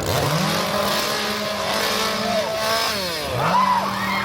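Gasoline chainsaw revved up to full throttle and held, let back down to idle just before the three-second mark, then revved up and held again.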